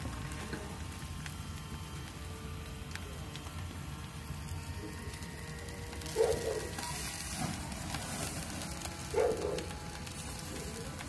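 Barbecue meat skewers sizzling on a gas grill: a steady hiss with scattered faint crackles, swelling for a couple of seconds a little past the middle. Two short, louder sounds come about six seconds in and again about three seconds later.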